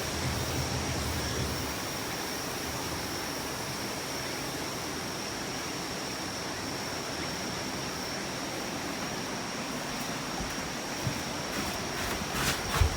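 Typhoon wind and rain, a steady rushing noise, with a few short knocks near the end.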